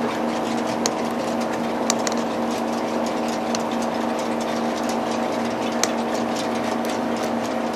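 HO scale model freight train running: a steady mechanical hum with light, irregular clicks scattered through it.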